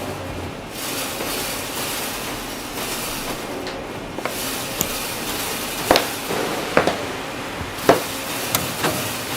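A few sharp knocks over a steady background hiss, the loudest about six, seven and eight seconds in.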